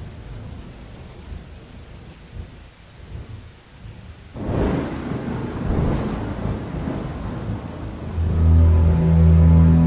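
Thunderstorm effect: rain with rolling thunder, and a louder peal of thunder about four and a half seconds in. In the last second and a half a deep, sustained bass-boosted chord comes in, the start of the theme music.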